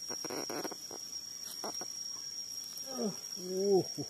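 Insects in the surrounding forest keep up a steady high-pitched drone. There is a short rustle near the start, and a brief voice about three seconds in.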